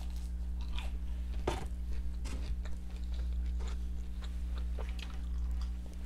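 Close-miked biting into and chewing a crispy breaded chicken nugget: irregular crunches, the sharpest about a second and a half in, then softer chewing crunches.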